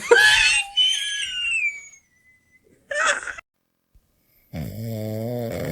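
A dog's vocal answer to a call: a high, wavering cry that falls in pitch over about two seconds, a short cry about three seconds in, then a low, raspy, drawn-out groan near the end.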